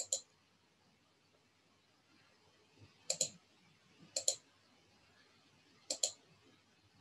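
Computer mouse button clicked four times, spaced a second or more apart; each click is a quick pair of ticks as the button is pressed and released.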